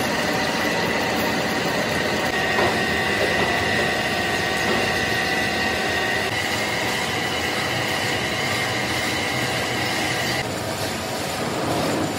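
Large metal lathe turning a big steel shaft while the tool cuts, a steady machine noise with a high whine running through it that stops about ten seconds in.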